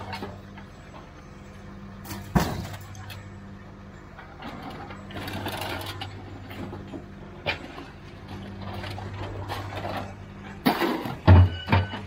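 Scrap metal being thrown out of a trailer by hand, clanking and ringing: one sharp clank about two seconds in and a cluster of loud ringing clanks near the end. A steady low engine hum runs underneath.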